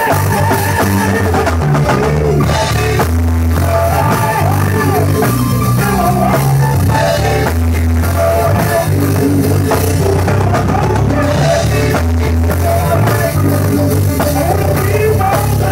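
Live gospel band music in rehearsal: a drum kit and bass playing a steady groove, with voices singing over it.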